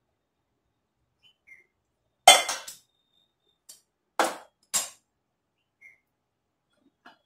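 Steel cookware and utensils clinking: a loud ringing clink about two seconds in with a quick rattle after it, then two more clinks a couple of seconds later.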